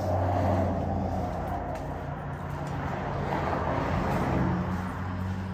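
Cars passing by on a road, two of them swelling up and fading, one right at the start and one about four seconds in, over a steady low hum.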